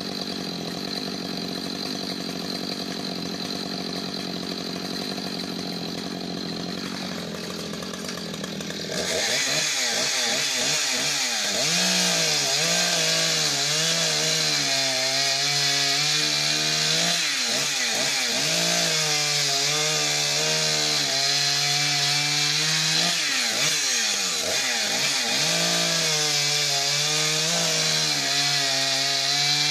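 Echo CS-590 two-stroke chainsaw with a 24-inch bar idling steadily, then opened up to high revs about nine seconds in and cutting through a log. Its engine speed repeatedly dips and recovers as the chain bites into the wood.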